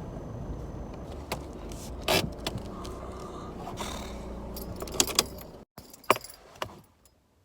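Mitsubishi Triton's engine running at low speed, heard from inside the cab, with several clicks and rattles over it. The sound cuts off abruptly about six seconds in, leaving a few faint clicks.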